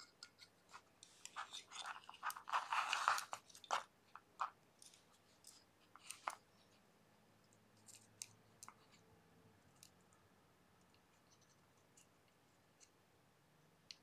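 Hands handling thin wire at a plastic battery box: a burst of crackling and scraping with quick clicks in the first few seconds, then scattered small clicks and ticks.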